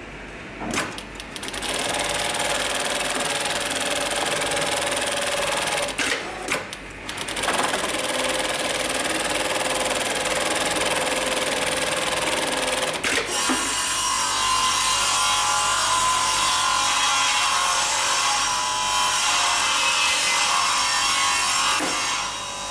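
Direct-drive industrial programmable pattern sewing machine stitching at speed. It stops briefly with a few clicks about six seconds in, then runs again and changes to a higher, steadier tone about halfway through.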